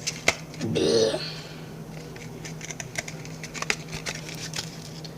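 Scattered light clicks and taps of handling a plate and food, one sharper click near the start and a cluster a few seconds in, over a steady low hum.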